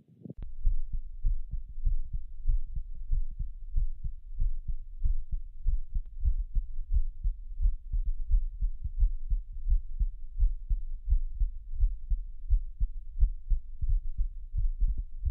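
Heart sounds recorded through a CloudSteth stethoscope: a steady rhythm of low, dull heartbeats. A brief click comes just before the beats begin.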